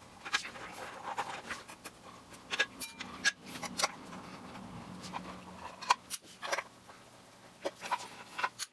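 Small screws being undone with a hand screwdriver and a plastic cover lifted off the underside of a turntable: scattered light clicks and taps of metal and plastic, irregularly spaced, over a faint steady hum.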